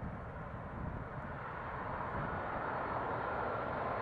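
Jet engines of a twin-engine airliner on final approach: a steady rushing whine that grows louder as the plane nears, over wind rumbling on the microphone.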